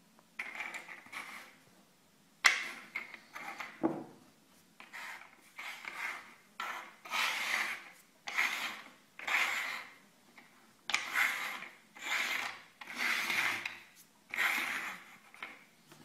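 Small domed cups slid and shuffled across a wooden tabletop: a dozen or so short scraping rubs, coming in quicker succession in the second half.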